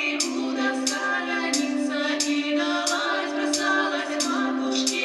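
Women's vocal trio singing a Russian folk song together in several parts, with held, gliding notes. A crisp high tick marks the beat about every two-thirds of a second.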